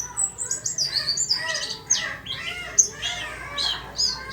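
Caged white-eye (pleci) singing busily: a quick, continuous run of high, sweeping chirps and twitters with no pause.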